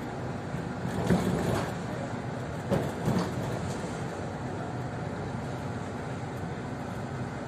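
Cercanías commuter train running through the station yard, heard from inside the carriage: a steady rumble of wheels on rail. Clusters of wheel knocks come about a second in and again around three seconds in.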